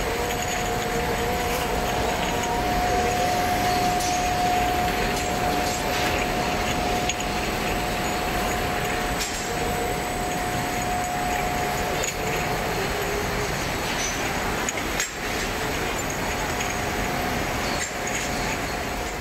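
Glass bottles clinking against each other as they run along a conveyor through a belt spacer, over steady machinery noise with a constant whine that fades after about twelve seconds.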